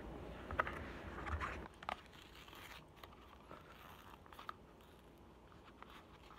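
Crinkling and tearing of a thin plastic wrapper, loudest in the first two seconds, then a few light clicks and taps: a juice carton's drinking straw being unwrapped.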